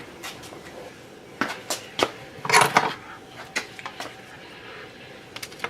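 Light clicks and clinks of small tools and parts being handled on a workbench during wiring work on a model locomotive. The loudest clatter is about two and a half seconds in, with a few more scattered clicks after it.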